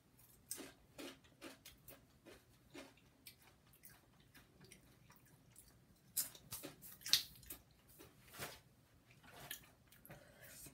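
A person chewing a Paqui ghost pepper tortilla chip: irregular crisp crunches, with a few louder ones about six to seven seconds in.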